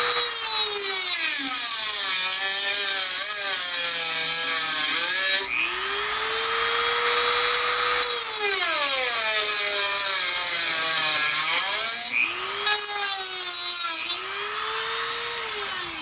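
Dremel rotary tool cutting into the metal casing of a tubular filter capacitor. Its whine sinks in pitch as the bit bears into the metal and climbs back as the pressure eases, twice, and the tool stops at the end.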